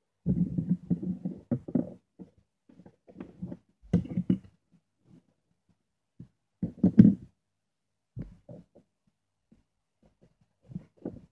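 Handling noises of small tools and tape on a wooden tabletop: irregular knocks, taps and rubbing in short clusters, with a sharp click about four seconds in and the loudest knocks about seven seconds in.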